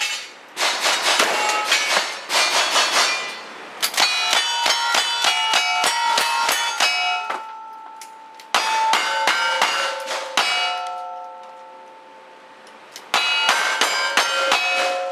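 Revolver shots striking steel plate targets, each hit followed by a ringing metallic clang. The shots come in quick strings, with several ringing pitches hanging on between them. Near the end the ringing dies away for a couple of seconds before a last quick string of hits.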